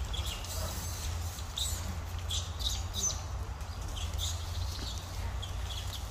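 Irregular short, high-pitched animal chirps and squeaks, several a second, over a steady low rumble.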